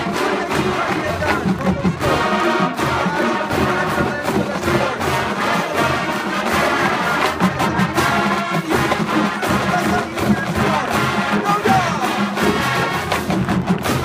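Marching band playing a loud brass arrangement, trumpets and trombones over a driving drum beat.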